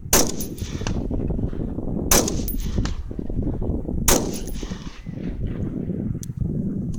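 AR-15 rifle firing 5.56 rounds: three single shots about two seconds apart, each with a short echo.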